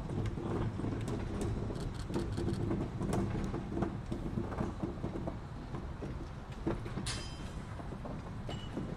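Old gondola railcar rolling slowly along the siding, its wheels clicking and creaking over the track, with the steady low drone of a diesel locomotive working under it. A brief high-pitched metallic squeal comes about seven seconds in.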